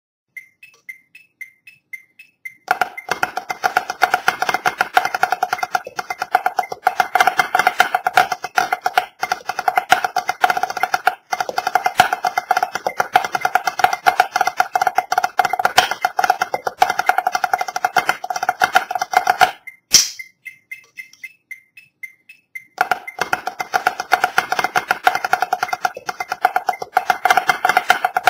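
A snare drum struck with sticks, playing a rudimental solo of fast rolls, flams and accented passages. The playing starts about three seconds in, after a few light regular ticks. It stops for about three seconds about two-thirds of the way through, with the light ticks again, then starts again.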